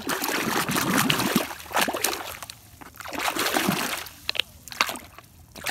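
Water sloshing and splashing in irregular bursts as a small plastic toy tank is swished and rubbed by hand in muddy water to wash it.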